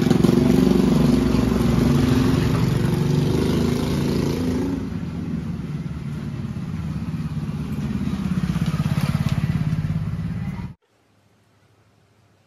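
A two-wheeler engine running steadily, louder in the first few seconds, then cutting off suddenly near the end.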